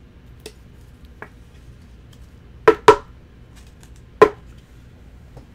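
Sharp clacks of hard objects knocked or set down on a tabletop during card handling: two loud ones close together about two and a half seconds in, another just after four seconds, and a few faint taps.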